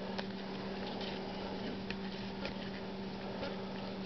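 Faint, scattered soft ticks of trading cards being handled and flipped through by hand, over a steady low hum.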